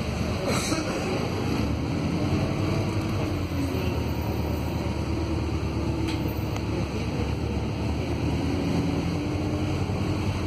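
Cabin noise of a Volvo B215RH hybrid city bus under way on a wet road: a steady rush of drivetrain and tyre noise with a faint low hum.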